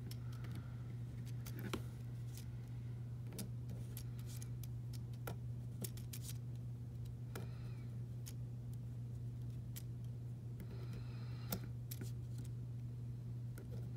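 Plastic LEGO Technic beams, pins and gear of a hand-cranked strandbeest leg linkage clicking and rattling irregularly as the leg cycles through its walking motion. A steady low hum runs underneath.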